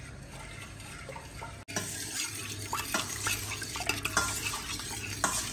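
A spoon stirs tomato paste into water in a stainless steel pot, scraping and clicking against the metal in irregular strokes that get busier after about a second and a half.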